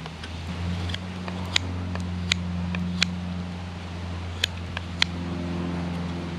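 Knife whittling a stick of ash: about half a dozen sharp, irregularly spaced clicks as the blade bites and shaves the wood. Under them runs a steady low hum.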